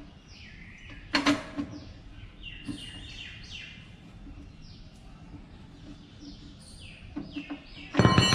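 Metal hand tools clinking as a spanner works the bolts on a Royal Enfield Bullet, with a sharp clink about a second in and a loud clank that rings on near the end. Birds chirp over and over in short falling notes throughout.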